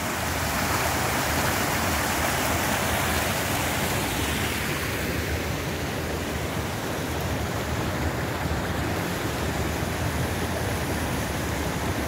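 Small mountain stream rushing and splashing over boulders in little cascades, a steady noise that grows slightly softer about halfway through.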